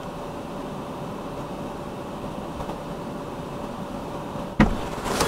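Steady hum in a car's cabin, with a single sharp thump about four and a half seconds in, after which the noise grows louder.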